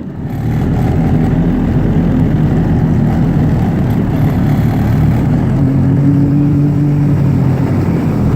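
Motor engine running steadily while under way through floodwater, a continuous low hum with a wash of noise over it.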